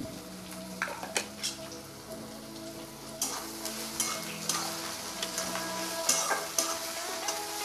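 Sliced onions sizzling as they fry in hot oil in a metal kadhai. From about three seconds in, a metal spatula scrapes repeatedly against the pan as the onions are stirred.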